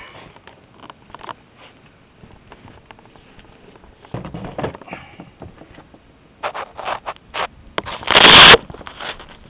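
Handling noise from an RC float-plane model of a Cessna 182, picked up by its onboard camera: scattered knocks, taps and scrapes as it is gripped by hand and moved onto the dock, its motor stopped. About eight seconds in comes a loud half-second rush of noise.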